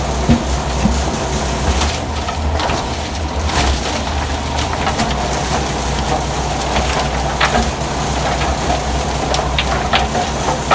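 Motor-driven crusher blades of a fish-feed pellet machine running with a steady low hum, with irregular cracks and knocks as hard, block-shaped fish is chopped up.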